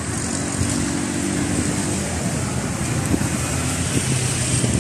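Street traffic: motor vehicles passing with a steady engine hum. A lower engine note comes in near the end.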